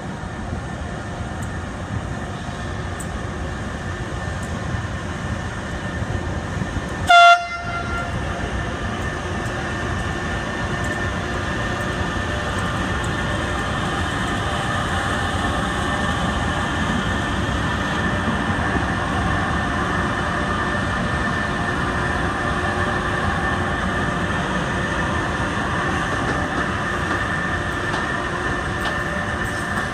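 A freight train hauled by two FS E.412 electric locomotives runs past with a steady rumble of wheels on the rails. About seven seconds in, a train horn gives one short, loud blast.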